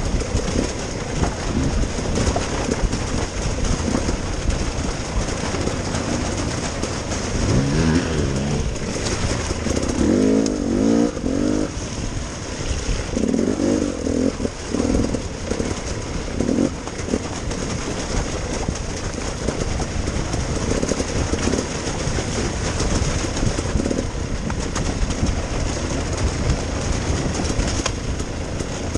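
Dirt bike engines revving, their pitch rising and falling in several bursts through the middle, over a steady rush of noise.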